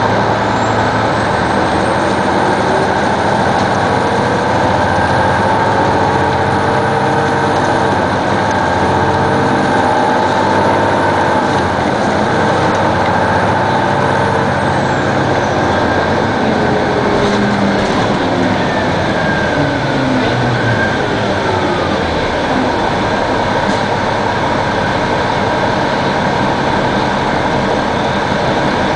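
A 2002 Neoplan AN-460 articulated bus under way, its Detroit Diesel Series 60 inline-six diesel and Allison B500R automatic transmission running loudly and steadily. The engine and driveline pitch climbs over the first several seconds. About halfway through, a high whine drops away, and the pitch then winds down.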